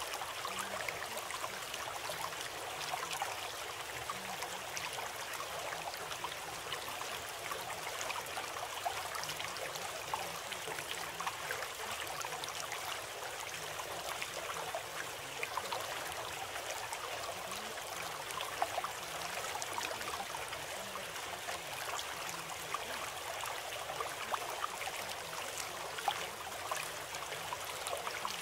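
Running water of a small stream, a steady babbling and trickling with fine splashy ticks and no change in its flow.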